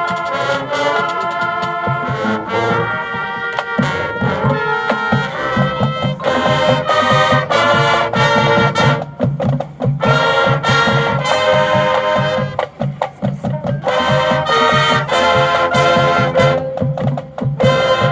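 High school marching band playing, its brass section sounding loud held chords over a steady low beat, with a couple of short breaks between phrases.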